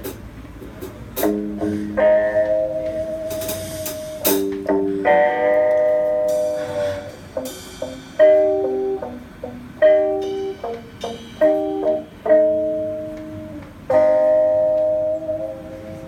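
Small rock band playing live: electric guitar chords struck and left to ring over bass, with sharp drum and cymbal hits in the first few seconds.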